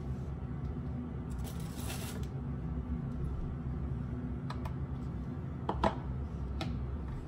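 Light handling clicks: a finger tapping the buttons of a stainless steel digital kitchen scale, then the plastic mixing bowl lifted off the scale with a sharper knock about six seconds in. A brief soft rustle comes earlier, over a steady low hum.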